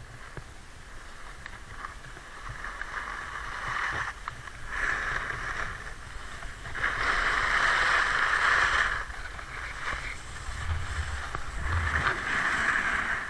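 Packed snow hissing and scraping under a rider sliding downhill, swelling in three long surges, the loudest about seven to nine seconds in, over a low rumble of wind on the microphone.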